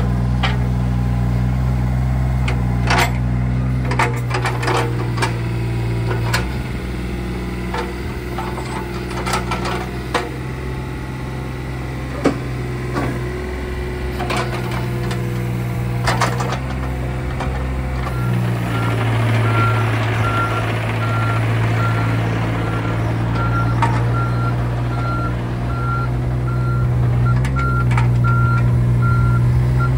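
John Deere 26G mini excavator's 20 hp diesel engine running steadily under hydraulic work, with several sharp clanks in the first half as the arm and bucket move. About two-thirds in the engine works harder and a travel alarm starts beeping in a steady series as the machine tracks.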